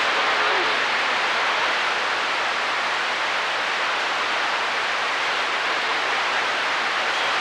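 Steady hiss of band noise from a CB radio's speaker, open on channel 28 between transmissions during long-distance skip conditions.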